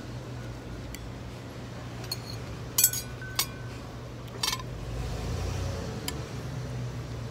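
Metal cutlery clinking against ceramic plates while eating: a few sharp clinks about three seconds in and another near the middle, over a steady low background hum.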